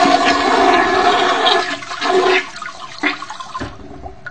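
Toilet flushing: a loud rush of water that dies away about three and a half seconds in.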